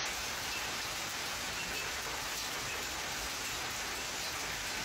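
Hailstones falling steadily on a paved yard and on patio table and chairs, an even, unbroken sound of many small impacts.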